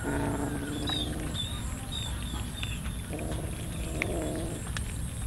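Stray cats meowing: one drawn-out meow at the start and another, wavering in pitch, about three seconds in.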